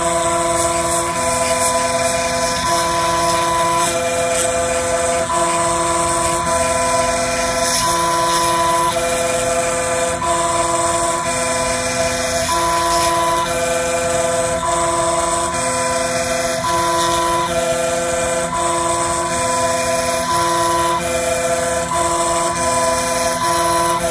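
Desktop CNC machine grinding down a phone IC: the cutting spindle hisses steadily while the stepper motors whine in steady tones that change pitch every second or so as the axes change direction.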